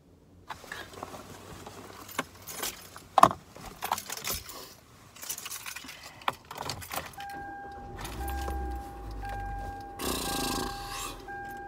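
A bunch of car keys jangling and clattering as they are handled, then the key going into the ignition and the car's warning chime starting to beep steadily over and over. A low rumble and a short rush of noise come in under the chime near the end.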